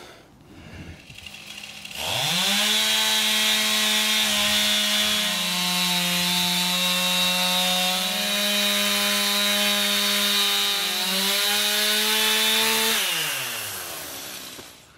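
Stihl MS 291 two-stroke chainsaw with a ripping chain, mounted in a Granberg edging mill, revving up about two seconds in and running at a steady full throttle as it rips lengthwise through a log. Near the end the throttle is released and the engine winds down.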